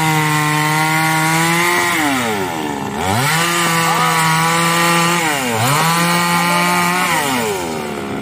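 Two-stroke petrol chainsaw cutting into a log, revving up hard and dropping back toward idle three times: high from the start, down at about two seconds, up again at three, down at about five and a half, and one short rev before it settles near the end.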